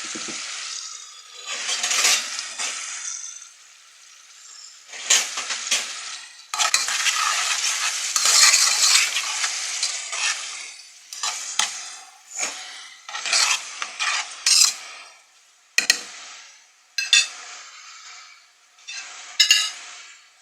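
Chopped onions and green and red peppers sizzling in hot oil in a pot, stirred in irregular bursts, with a spoon scraping and clicking against the pot.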